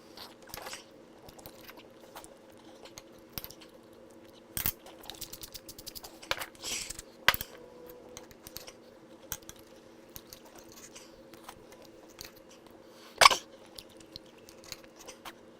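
Cutlery clicking and clinking against a plate while steak is cut and eaten, with scattered light taps and a few sharper clinks, the loudest about 13 seconds in. A steady low hum runs underneath.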